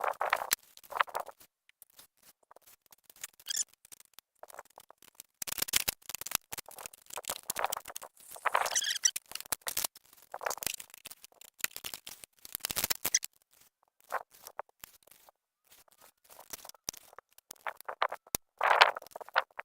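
Vinyl siding being cut and worked by hand: irregular scraping and rasping noises of varying length, the longest run around the middle and a sharp burst near the end.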